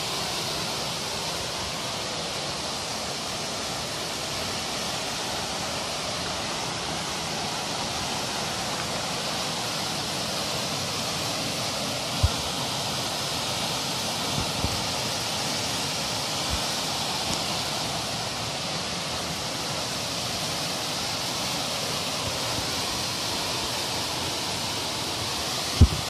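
Waterfall's steady rush of water plunging into its pool, heard from the rim above the gorge. A few brief low bumps come midway.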